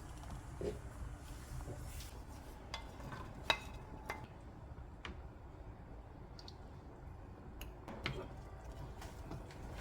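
Scattered clinks and knocks of kitchen utensils against cookware, the sharpest about three and a half seconds in, over a steady low hum.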